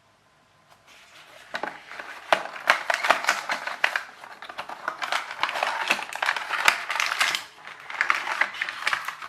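Packaging being handled and opened: a rapid, irregular run of crackles and clicks that starts about a second in.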